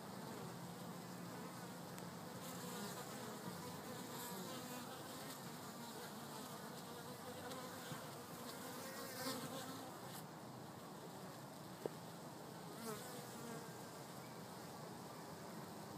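Honeybees buzzing at the entrance of a wooden hive: a steady drone of many bees, with single bees swelling louder as they fly close past, twice.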